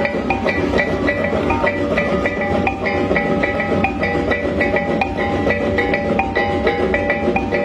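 Rhythmic festival dance music: fast mallet-struck pitched percussion ringing short notes several times a second over a steady drum beat.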